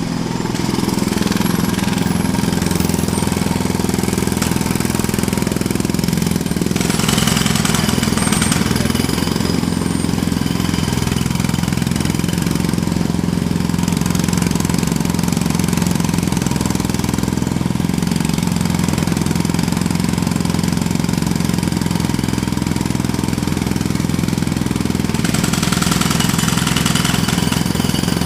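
Jackhammer hammering without pause at a rapid rate over a steady low drone, with its sharper, brighter rattle swelling about a quarter of the way in and again near the end.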